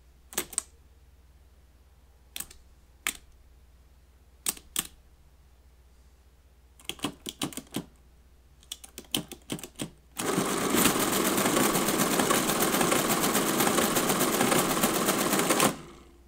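Friden STW-10 electromechanical calculator: its keys clack as a number is entered, a few single and double clicks and then quicker runs of clicks. About ten seconds in, the motor-driven mechanism starts a fast, even clatter, crunching through a multiplication, and stops abruptly after about five and a half seconds.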